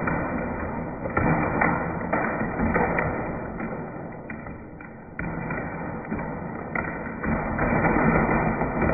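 An electric fan running noisily, with irregular sharp knocks and clatters as its plastic parts are struck.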